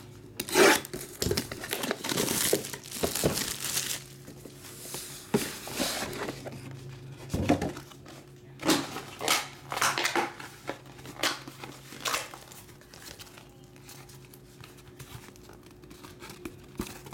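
Booster pack wrappers and box packaging crinkling and rustling as they are handled and unpacked, in irregular bursts with a few sharp clicks. It is busiest in the first few seconds and dies down near the end.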